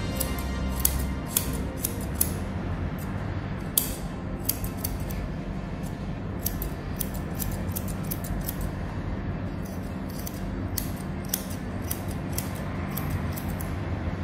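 Grooming shears snipping through a Maltese's head hair: a run of quick, irregular snips, several a second.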